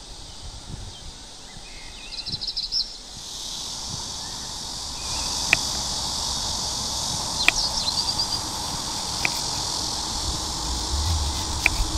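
Kitchen knife slicing zucchini and onion on a wooden cutting board, with about four sharp taps of the blade on the board a second or two apart. Behind it is a steady outdoor insect hiss with a few bird chirps.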